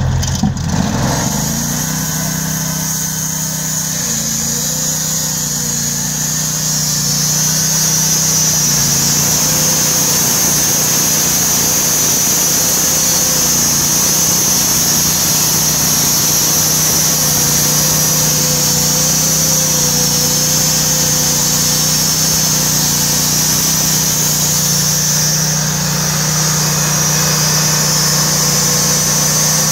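Norwood portable bandsaw mill's Honda gas engine speeding up from idle about a second in, then running steadily under load as the band blade saws lengthwise through a squared log, with a steady high-pitched hiss from the blade in the cut.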